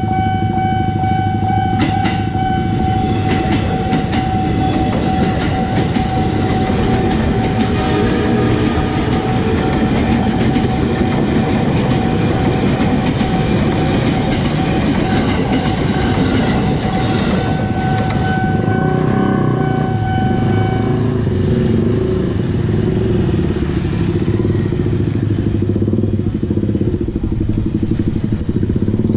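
A JR 205-series KRL electric commuter train pulling out of the station and running past the level crossing, a continuous low rumble, while the crossing's warning alarm sounds a steady high tone that stops about three-quarters of the way through. Near the end, motorcycle engines as the waiting riders cross the tracks.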